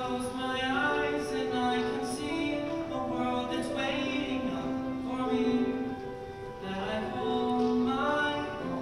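A large mixed choir of high school voices singing held chords, moving together to a new chord every second or two.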